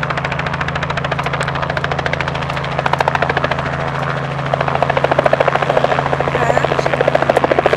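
Robinson R44 helicopter running, its rotor blades chopping rapidly over a steady engine drone; the blade chop grows louder about five seconds in.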